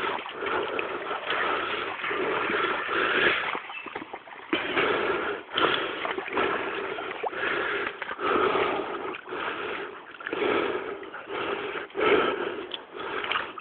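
Huskies panting hard after a run, in irregular noisy bursts.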